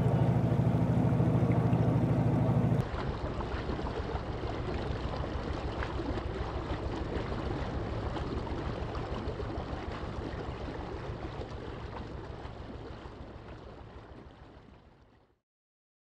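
Boat engine running, with water rushing along the hull. About three seconds in the sound cuts to a quieter engine pulsing evenly over the water, which fades out near the end.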